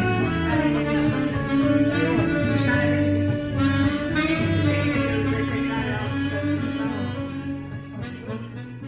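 Saxophone playing a melody with held notes over a bass and chord accompaniment, amplified through a small street-performer speaker, fading out near the end.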